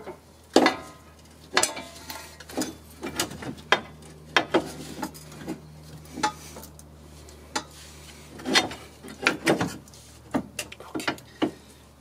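Irregular metallic clanks and knocks as a 2002 Honda Civic's new front lower control arm is slid and worked into place against the suspension, loudest shortly after the start and in a cluster about two-thirds of the way through.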